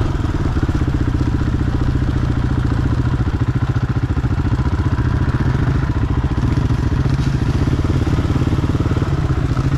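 KTM 500 single-cylinder four-stroke dirt bike engine running at low, steady revs, a continuous even thumping.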